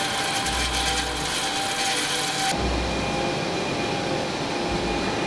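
Steady industrial machinery noise with faint steady tones; the hiss drops away abruptly about two and a half seconds in.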